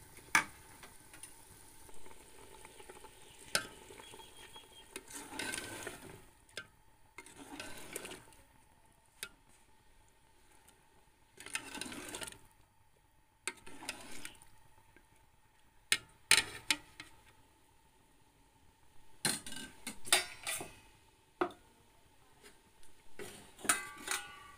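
A ladle stirring chicken stock for pulao in a metal pot: a series of separate swishing strokes through the liquid, with sharp clinks of the ladle against the pot, several of them in quick succession later on.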